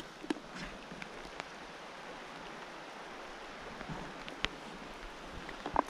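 Steady rush of flowing creek water over riffles, with a few sharp ticks near the start and again near the end.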